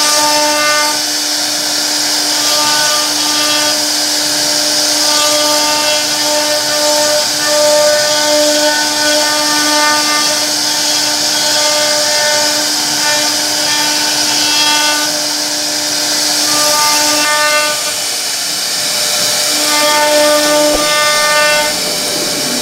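CNC router spindle running and carving a wooden panel: a steady whine over the hiss of the bit cutting, the whine fading and returning now and then as the cut changes.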